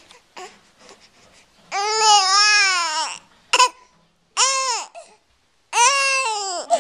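A baby whining: four high-pitched, drawn-out whines, the first long and wavering, each rising and then falling away at the end, with short quiet gaps between them.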